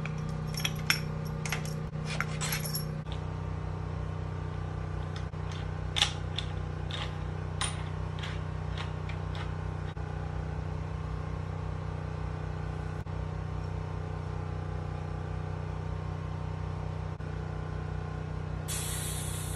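Short metallic clicks and clinks from handling a Fox bicycle suspension fork and its parts, in a cluster in the first three seconds and another from about six to nine seconds, over a steady low hum. Near the end a steady hiss starts suddenly: air being let out of the fork's air spring valve under a rag.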